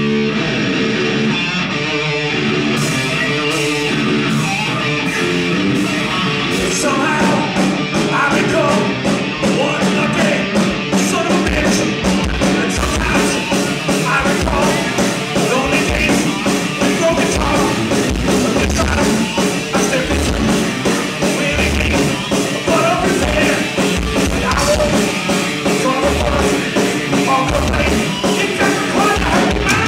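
Live rock band playing: electric guitars open alone, then drums and cymbals come in about three seconds in, with a heavier kick drum from about twelve seconds in.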